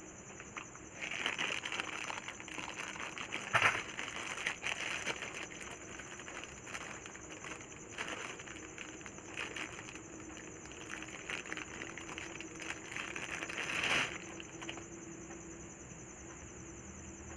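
Crinkling, rustling handling noise of a keyboard and its packaging being moved about by hand, with a sharp knock about three and a half seconds in and a louder rustle just before the noise dies down, about fourteen seconds in.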